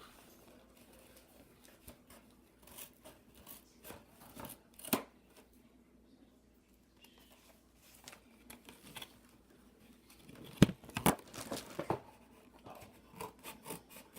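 Scissors snipping and plastic toy packaging crinkling as a toy is cut free of its box, in scattered short clicks and rustles. A couple of sharp knocks about ten and a half seconds in are the loudest sounds.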